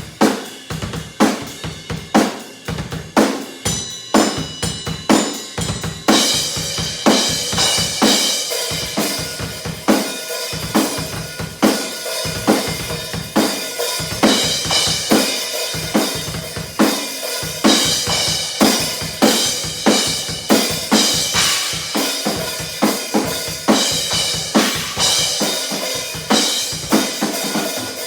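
Acoustic drum kit with two bass drums and new cymbals being played in a steady groove: kick and snare hits with hi-hat. The cymbals grow busier and brighter from about six seconds in.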